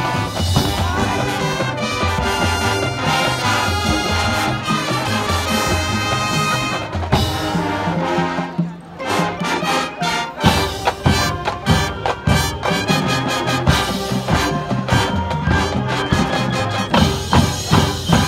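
High school marching band playing its field show: brass section with drumline and front-ensemble percussion. The sound thins out briefly a little before halfway, then comes back with sharp accented hits.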